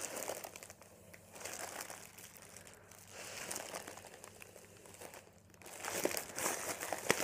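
A thin plastic sandwich bag crinkling as breath is blown into it and squeezed back out, with soft hissing stretches of breath. The crinkling grows louder near the end as the bag is handled.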